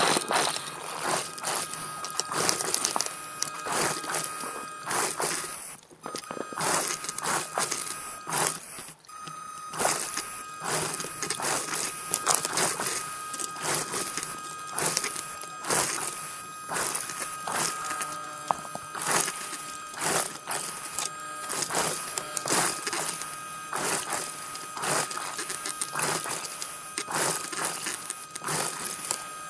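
Underwater dive scooter's motor giving a steady high whine over dense, irregular crackling and clicking. The whine drops out briefly about six seconds in and again near nine seconds.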